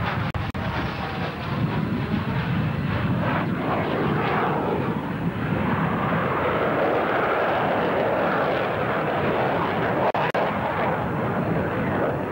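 Jet roar of a McDonnell Douglas F/A-18 Hornet's twin turbofans during a flying display pass. The tone sweeps and shifts over the first few seconds as the jet passes, then settles into a steady roar as it draws away. The recording drops out briefly twice.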